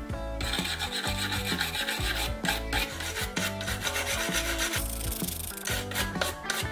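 Small wire brush scrubbing the bare metal of a diecast model car body in quick back-and-forth strokes, a dry scratching that clears off softened paint residue after stripping. Background music plays underneath.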